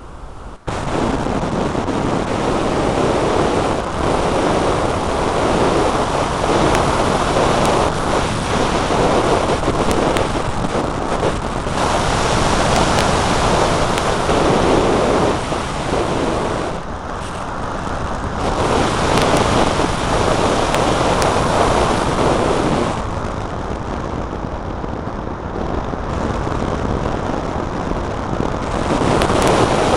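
Wind rushing over the microphone of a spy camera mounted on a Starfire 48-inch EPP flying wing gliding with no motor. The rush cuts in abruptly about half a second in, swells and eases with the glider's speed, and drops back for a few seconds past the two-thirds mark.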